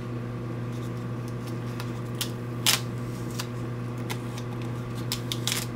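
Handling noise from a plastic model airplane and a crumpled strip of peeled-off Gorilla Tape: scattered soft rustles and small clicks, one sharper about two and a half seconds in and a few close together near the end. A steady low hum runs underneath.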